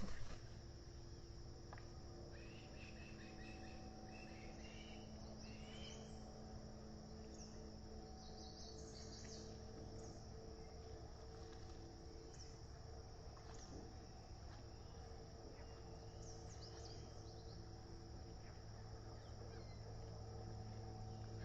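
Faint, steady high-pitched chorus of crickets or other insects over a low steady hum, with short scattered bird chirps. A brief knock at the very start.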